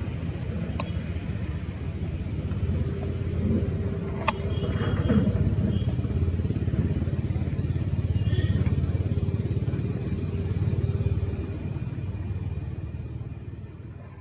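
Twin-engine jet airliner climbing away after takeoff: a steady low engine rumble that fades near the end, with a sharp click about four seconds in.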